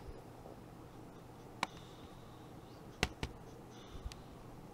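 A few sharp, short clicks over a faint steady hum: one about one and a half seconds in, then two close together around three seconds, and a weaker one near the end.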